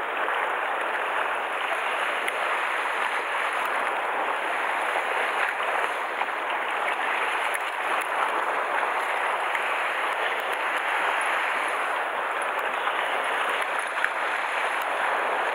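Sea water washing steadily against the shore rocks, an even, unbroken wash.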